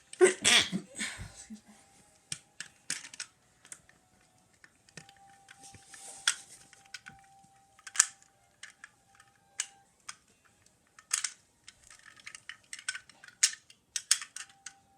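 Plastic Lego bricks clicking and clattering as they are handled and pressed together: a dense clatter in the first second or so, then scattered single sharp clicks.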